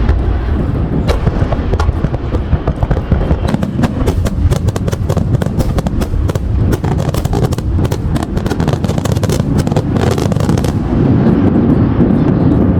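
Aerial fireworks going off in a dense barrage: many rapid sharp crackles over a continuous low rumble of bursts. The crackling dies away about eleven seconds in, leaving the rumble.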